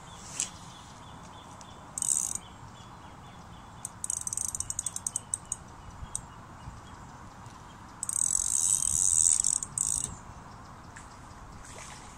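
Fixed-spool reel's drag ticking and buzzing in spells as a hooked carp pulls line off against it: a short burst about two seconds in, a rapid run of ticks around four seconds in, and a longer high buzz of over a second about eight seconds in.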